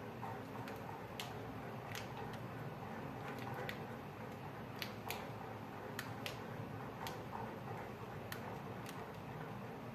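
Sharp, irregular clicking: about a dozen ticks at uneven intervals, some in quick pairs, over a steady low room noise.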